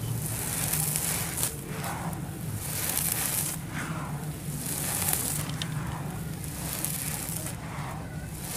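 Dry, grainy sand-cement dust being swept and scooped by hand, crumbling and sifting back onto the pile. It makes a soft, gritty hiss with fine crackle that swells and fades with each sweep, several times over.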